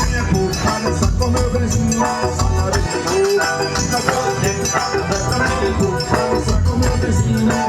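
Live forró pé de serra band playing an instrumental passage: an accordion carrying the melody over a steady low drum beat and a shaker.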